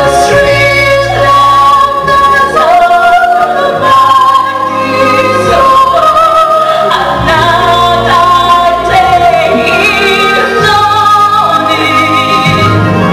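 A woman singing long, held melodic lines with vibrato over a live stage-musical accompaniment.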